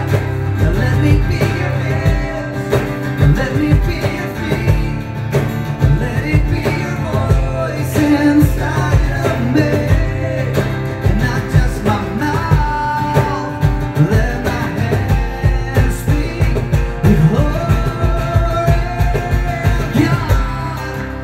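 Live acoustic rock worship song: a male lead vocal sung through a microphone over a strummed acoustic guitar, with a steady rhythm.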